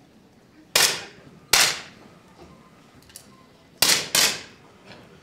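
10 m air pistols firing on the range: four sharp pops from different shooters, each with a short echo. Two come about a second apart early on, then two in quick succession near the end.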